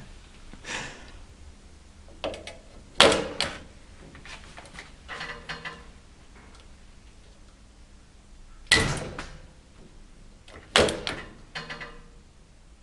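Homemade stainless-steel speargun trigger mechanism being worked: a steel rod is pushed in and latched by the sear, then released by a trigger pull. There are three sharp metallic clacks a few seconds apart, the middle one loudest, with lighter rattles between them.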